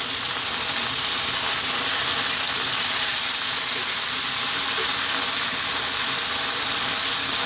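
Sliced onion, carrot and bell pepper stir-frying over high heat in a wok with soy and oyster sauce, turned with a wooden spoon: a steady sizzle.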